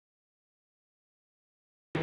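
Complete silence with no signal at all, until a sound cuts in abruptly right at the very end.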